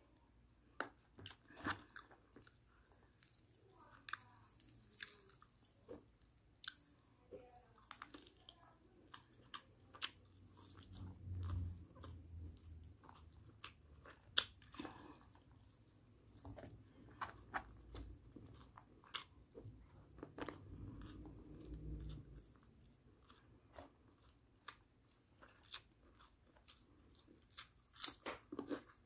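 Close-up chewing and biting of barbecued chicken, with many short sharp wet mouth clicks and crunches. A low rumble comes twice, once near the middle and once about two-thirds through.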